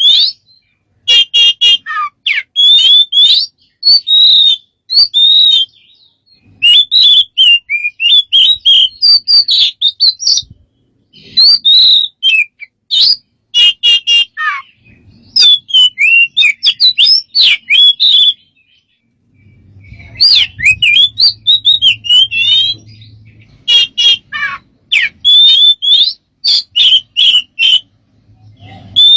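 A bird singing a fast, varied string of whistles, chirps and clicking notes, in bursts with short pauses between them.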